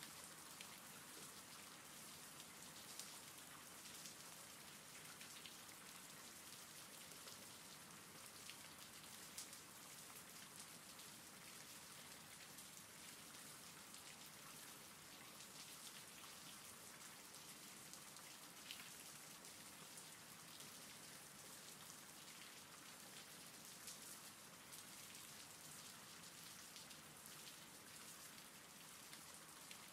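Faint, steady rain: an even hiss of falling rain with scattered single drop ticks.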